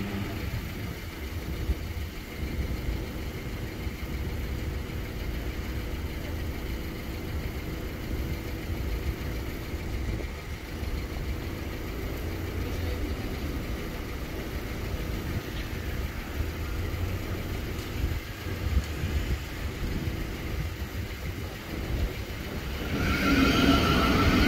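Steady low rumble of road vehicle engines, typical of traffic idling at a closed level crossing. About a second before the end, a louder vehicle comes in with a whining note and the level rises.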